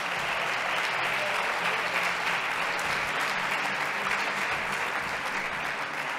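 An audience applauding with steady clapping.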